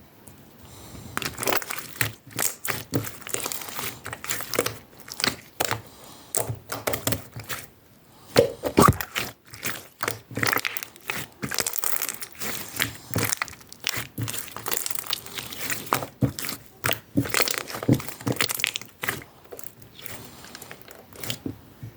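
Pearl slime being squished and worked: a fast, irregular run of clicks and crackles that starts about a second in and stops just before the end.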